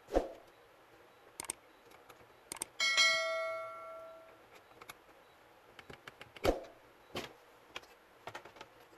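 Plastic laptop bottom cover being handled and fitted back onto the base: two sharp knocks, one near the start and one about two-thirds through, with small plastic clicks between. About a third of the way in, a metal object is struck once and rings, fading over a second or so.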